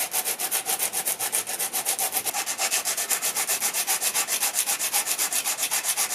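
Sandpaper on a small hand sanding block rubbed rapidly back and forth over the painted cast-iron body of a Record No. 3 vice, about eight strokes a second, sanding the blue paint off the raised logo lettering.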